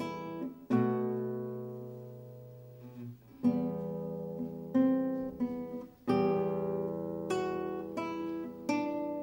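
Solo nylon-string classical guitar played fingerstyle: slow plucked chords, each ringing out and fading before the next, with one long-held chord near the start and quicker chords later.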